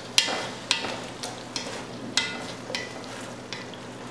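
Wooden spatula scraping the bottom of an enameled Dutch oven of meat sauce, working up the browned bits stuck to the pan while deglazing with beef broth: sharp scrapes about twice a second over a steady sizzle.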